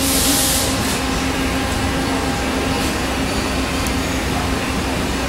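Steady workshop background drone with a constant low hum, and a short hiss near the start.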